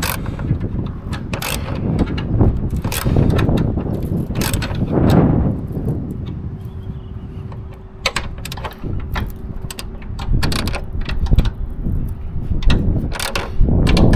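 Hands-on working noise of parts and tools being handled: a string of irregular clicks and knocks over a low rumble, with a faint steady hum in the middle.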